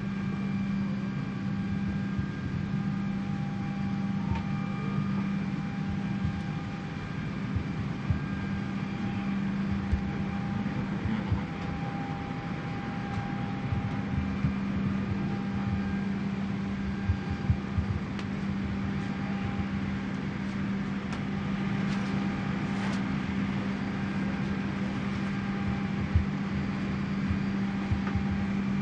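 Steady low hum of an airliner cabin's ventilation, with faint steady whining tones above it and scattered light knocks.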